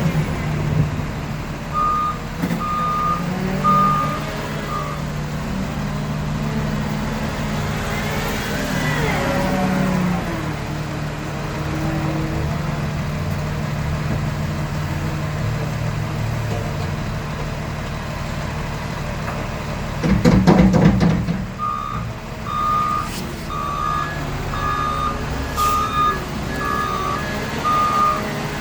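A heavy snow-clearing truck's engine runs steadily while its reversing beeper sounds about once a second, briefly near the start and again through the last several seconds. In between the engine revs up once, and about twenty seconds in there is a loud clatter of metal.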